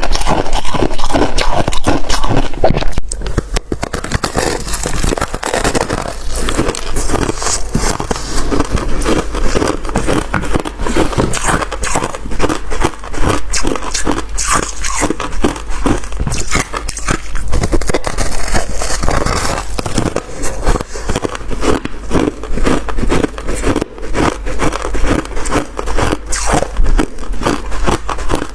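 Freezer frost being bitten and chewed close to the microphone: a dense, continuous crunching and crackling, loudest for about the first three seconds.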